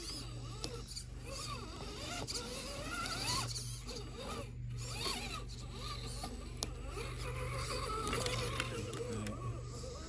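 Electric motor and geared drivetrain of a scale RC crawler whining as it climbs, the pitch rising and falling with the throttle.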